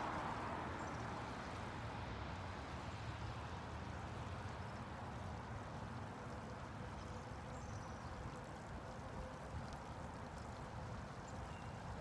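Water pouring in a steady trickle from a small bucket onto pervious concrete, soaking into the porous slab and slowly easing off. Road traffic runs in the background.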